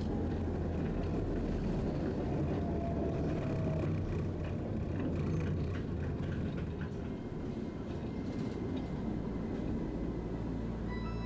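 Tosaden streetcar running, heard from inside the car: a steady low rumble of wheels and traction motors with scattered small rattles and clicks. Near the end it eases off as the car comes to a stop, leaving a steady low hum.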